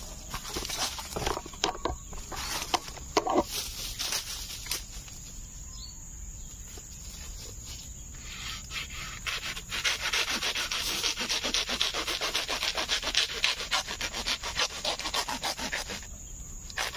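Hand pruning saw cutting through the base of a giant bamboo (buluh betung) shoot, with rapid back-and-forth strokes from about halfway in until near the end. Scattered clicks and rustles come before the sawing.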